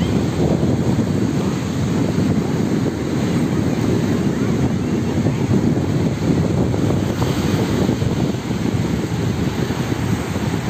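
Wind buffeting the microphone over the steady wash of small waves breaking and running up a sandy beach.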